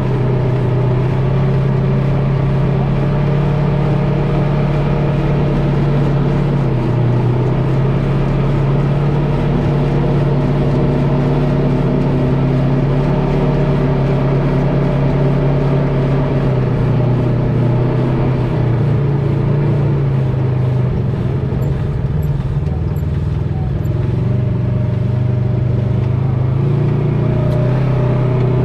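Drivetrain noise at the front differential of a 2018 1000XP High Lifter while it is driven: a steady low drone with overtones that sags slightly about twenty seconds in and comes back up near the end.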